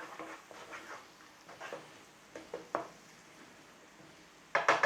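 Spoon stirring thick onion paste through spiced oil in a frying pan, with soft scrapes and clicks, then a quick run of loud knocks against the pan near the end.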